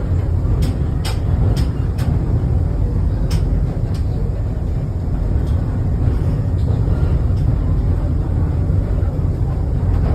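Funicular car running steadily on its rails, heard from inside the cabin as a continuous low rumble, with a few sharp clicks in the first four seconds.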